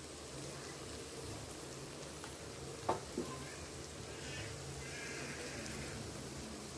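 Ivy gourd, onion and tomato sizzling faintly in oil in a kadai as the masala cooks, with two sharp taps about three seconds in.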